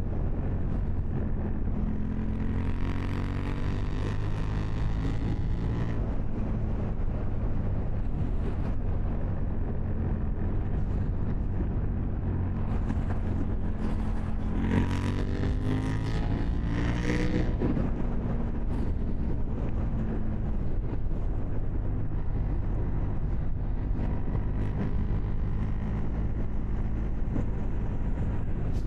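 KTM 790 Duke's parallel-twin engine running steadily. Its revs climb twice, a few seconds in and again about halfway through.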